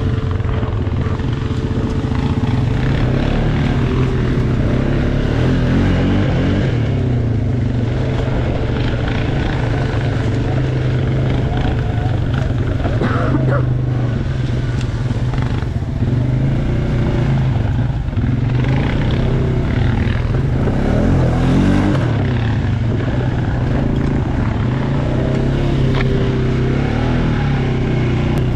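ATV engine running as it is ridden, its pitch rising and falling with the throttle.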